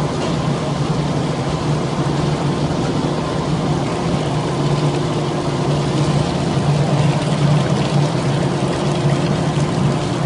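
Kiremko separator running steadily: a constant low machine drone over an even rush of pouring water.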